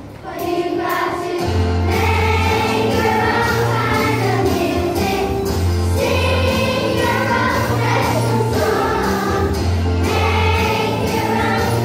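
Group of children singing along to an accompaniment track with a steady beat and bass line. The music dips briefly at the start and the bass comes back in about a second and a half in.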